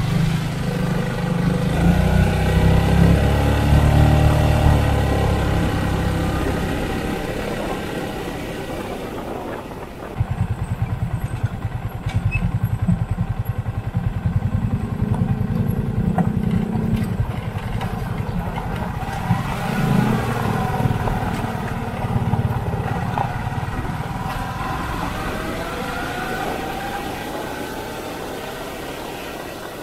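Motorcycle engines running on the move, the nearest one rising and falling in pitch with the throttle. From about ten seconds in, a fast, even rattle comes in over the engine noise.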